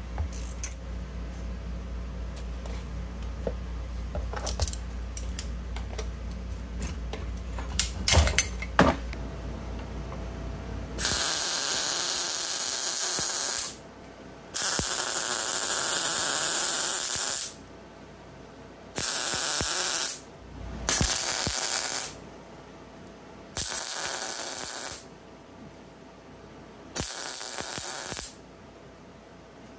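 A socket wrench working the bolts of a scooter exhaust pipe, with a few metal clicks over a steady low hum. Then a MIG welder welds the steel exhaust pipe to its mounting flange in six hissing, crackling bursts of one to three seconds each, with short pauses between.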